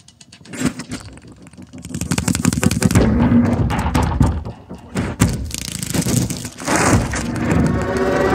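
Sound effects of a Dolby cinema logo trailer played through an open-air cinema's loudspeakers: a dense run of crackling clicks, clinks and knocks with low booms. It grows louder and thicker from about two seconds in.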